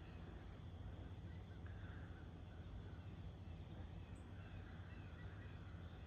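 Faint outdoor ambience: a low steady rumble with small bird chirps repeating faintly every second or so.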